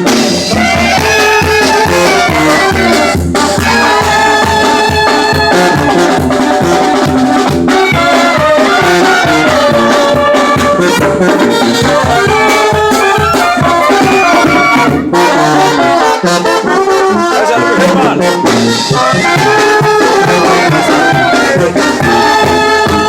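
Mexican banda brass band playing, trumpets and trombones carrying held melody notes over a steady, regular low beat.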